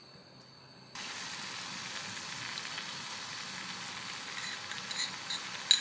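Tempeh simmering in water and sauce in a pan: a steady sizzle that starts about a second in, with a few sharp pops near the end.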